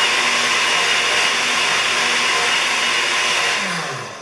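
Countertop blender running steadily at speed, blending a milkshake, then winding down near the end as it is switched off.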